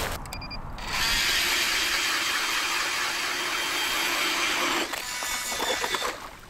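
Powered ice auger boring a hole through lake ice: a steady grinding run of motor and cutting blades for about four seconds. It stops just before the five-second mark, followed by a few knocks and scrapes of ice.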